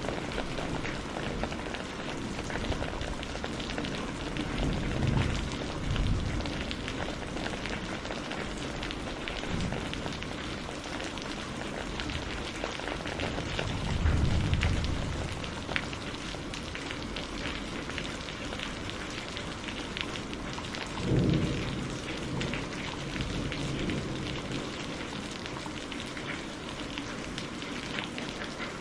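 Steady rain pouring in a thunderstorm, with three short rolls of low thunder: one a few seconds in, one about halfway and one about two-thirds of the way through.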